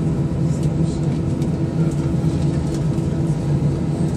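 Steady drone of an airliner's engines heard inside the cabin while the aircraft rolls slowly before take-off: a constant low hum with a rumble under it and faint light rattles.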